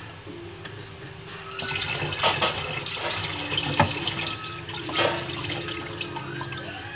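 Kitchen tap turned on about one and a half seconds in, water running steadily into a pan of cut carrots and potatoes being rinsed at the sink, with knocks and clinks of the pan.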